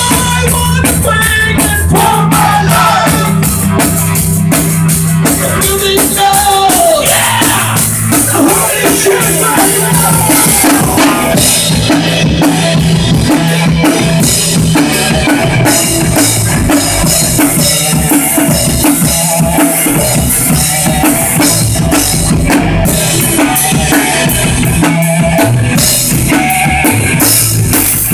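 Music with a drum kit playing a steady beat, kick and snare, over a held bass line and other melodic instruments.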